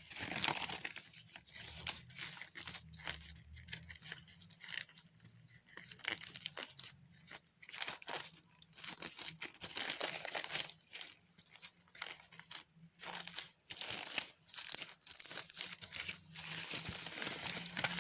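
Thin plastic crinkling and rustling as it is handled, in many irregular short bursts.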